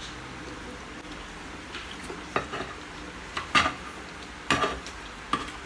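Cutlery clinking and scraping against a plate during eating: several short strokes, some in quick pairs, starting a little over two seconds in.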